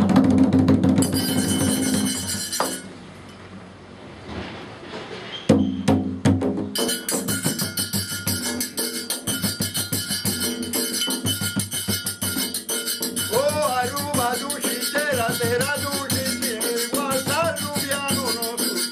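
Tambú drums played by hand in a quick rhythm with a handheld metal scraper keeping a fast, steady high pulse. The playing drops back about three seconds in and starts again a few seconds later. A man's singing voice comes in over it about halfway through.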